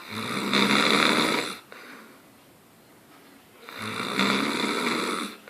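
Loud snoring: two long snores, each about a second and a half, with a quieter gap of about two seconds between them.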